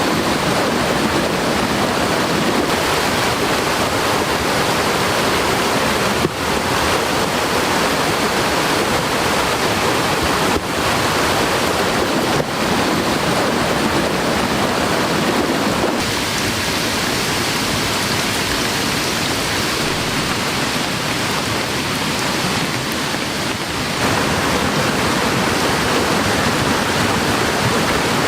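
Loud, steady rush of a rain-swollen mountain stream mixed with heavy rain. The sound shifts abruptly a few times.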